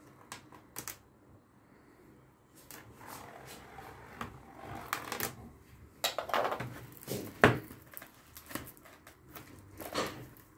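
Cardboard box and plastic film being handled as the box is closed: irregular rustling, scraping and light tapping, with one sharp knock of cardboard about two-thirds of the way through.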